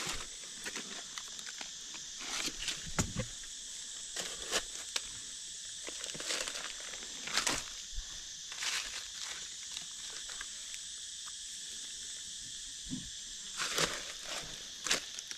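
Irregular short bursts of rustling and crunching in dry leaf litter as a forager moves and picks mushrooms, over a steady high drone of forest insects.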